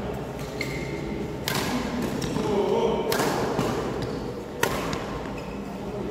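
Badminton rally: rackets striking the shuttlecock three times, about a second and a half apart, with a short squeak in between and players' voices in the background.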